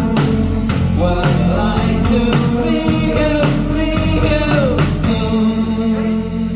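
Live band playing synth-driven rock, with a male voice singing over drums, bass guitar and keyboards. About five seconds in the drums drop out, leaving held keyboard and bass notes.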